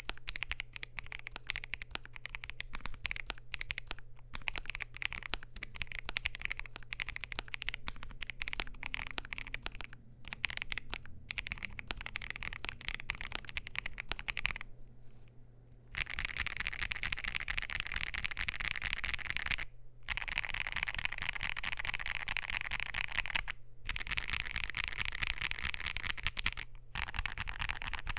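Typing on a modified CIDOO V75 mechanical keyboard with lubed, filmed CIDOO Matte linear switches on a foam-filled, gasket-mounted polycarbonate-plate board: a dense clatter of keystrokes. It breaks off briefly a few times, longest about 15 s in, and after that the keystrokes come faster and run together.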